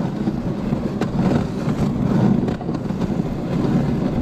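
A dog sled running along a packed snow trail behind its team: a steady, even rumble of the runners over the snow.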